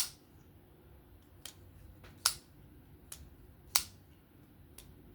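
Vosteed Raccoon folding knife's blade being opened and closed, giving about six sharp clicks, three of them loud, as the blade snaps into its top liner lock and shuts. The pivot runs on freshly installed skiff bearings.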